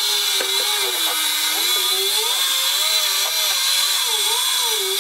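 Fishing reel's drag screaming as a hooked bluefin tuna strips line off the spool, its whine wavering up and down in pitch as the run speeds up and slows.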